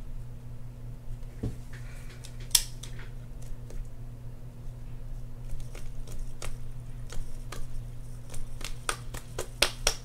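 Scattered small clicks and ticks of the metal parts of an Abu Garcia Ambassadeur 6500CL baitcasting reel as a piece is screwed on and the reel is turned in the hands to work in fresh oil. The clicks come thicker near the end, over a steady low hum.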